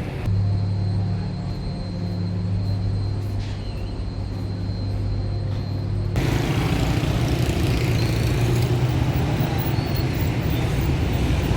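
A steady low hum. About six seconds in it cuts abruptly to busy street ambience with traffic running.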